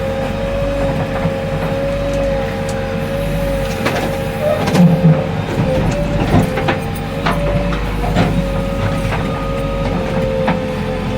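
JCB 3DX backhoe loader's diesel engine running steadily, with a low rumble, a steady whine and scattered metallic knocks and clanks from the working machine.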